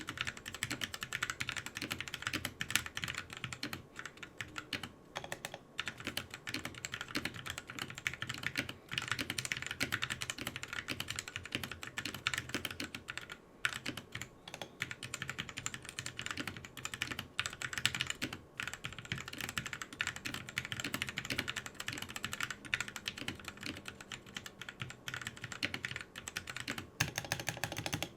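Fast, continuous typing on a mechanical keyboard fitted with pre-lubed Gateron yellow linear switches: a steady stream of keystroke clacks.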